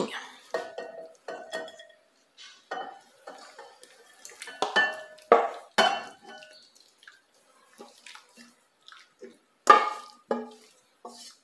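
Wooden spoon scraping and knocking stewed beef tongue out of a metal pot into a glass dish. The pot clinks against the glass, giving a string of irregular knocks and clinks, loudest about halfway through and near the end.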